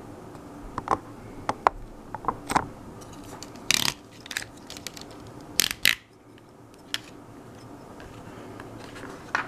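Lego plastic pieces clicking and rattling as they are handled and pressed together: a scatter of sharp clicks, with two longer rattles near the middle.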